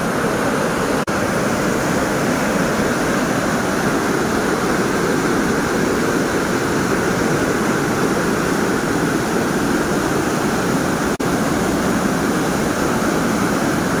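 Whitewater river rushing over boulders: a steady, unbroken noise of rapids, interrupted by two very brief dropouts, about a second in and near the end.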